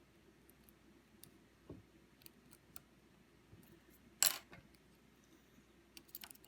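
Small metallic clicks and ticks of a lock pick and tension tool working the pins inside an Assa IC lock core, with one louder scrape about four seconds in and a quick run of clicks near the end.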